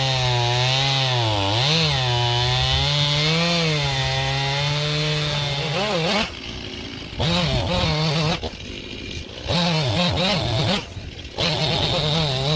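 Stihl MS271 Farm Boss chainsaw running at high revs, cutting, its pitch dipping and recovering a couple of times under load. After about six seconds the throttle is let off and opened again in short bursts, dropping back toward idle three times.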